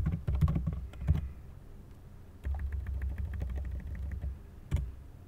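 Typing on a computer keyboard: a quick run of keystrokes in the first second, then scattered single key taps, with a low hum under the middle of the stretch.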